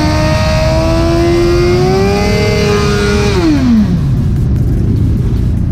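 Suzuki sport bike engine revved hard: the pitch climbs steadily, holds high for about a second, then drops quickly back toward idle about three and a half seconds in.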